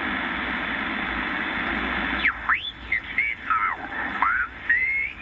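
Shortwave receiver's speaker hissing with band static, then about two seconds in the hiss drops away and whistling tones swoop up and down, the receiver picking up signals.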